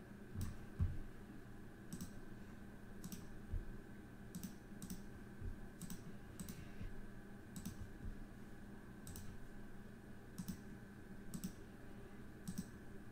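Computer mouse clicking: about a dozen single, sharp clicks at uneven intervals, over a faint steady hum.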